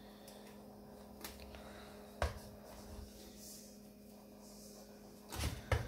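Hands pulling soft dough apart and shaping it into balls in a metal bowl: quiet handling with a few knocks, one about two seconds in and a louder pair close together near the end, over a faint steady hum.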